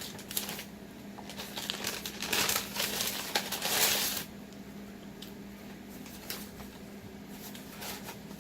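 Takeout food packaging crinkling and rustling as it is handled, in bursts over the first four seconds or so, then quieter with a few light clicks.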